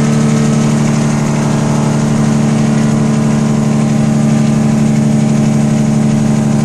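Semi truck's diesel engine running at a steady speed, heard from inside the cab as a loud, even drone with a strong low hum that does not change.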